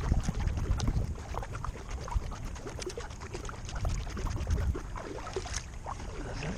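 Wind rumbling on the microphone aboard a kayak, with many small clicks and light splashes of water against the hull.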